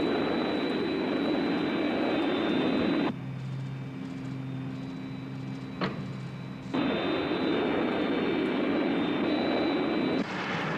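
Thunderbird 1's jet engines as a sound effect: a steady roar with a high whine. Midway it gives way for a few seconds to a lower, quieter steady hum with a single click, then the roar returns.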